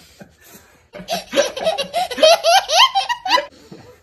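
A man laughing: a burst of quick, rising laughs starting about a second in and lasting about two and a half seconds.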